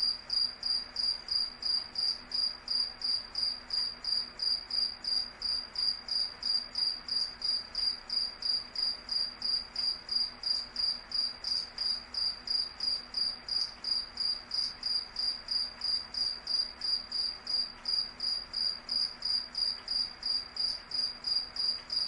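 A cricket chirping steadily, a high-pitched chirp repeated evenly about three times a second.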